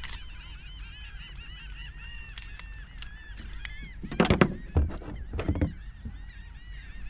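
Birds calling in the background, a busy chatter of short rising-and-falling notes, with a few loud knocks about four seconds in and again at five and a half seconds from the fish being handled in the kayak.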